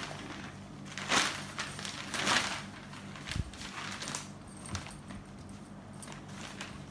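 Cotton saree fabric rustling and swishing as it is unfolded and spread out by hand, with louder swishes about a second and two seconds in and a soft thump about halfway through.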